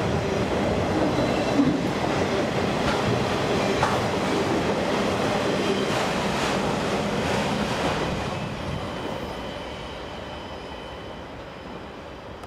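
Auto rack freight cars rolling past, the steel wheels clacking over the rail joints over a steady rumble. The sound fades away after about eight seconds as the end of the train passes.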